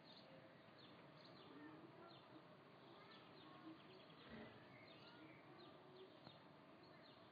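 Faint outdoor birdsong: many short chirps and quick twitters scattered through a quiet background, with a brief low bump about four seconds in.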